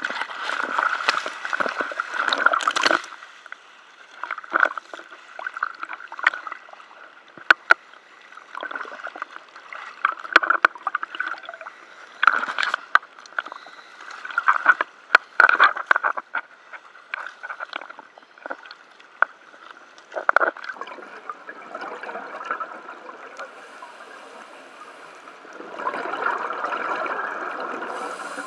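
Sea water sloshing, gurgling and splashing at the surface beside a boat, broken by many short sharp knocks and clicks at irregular moments. Near the end a steadier rushing noise takes over.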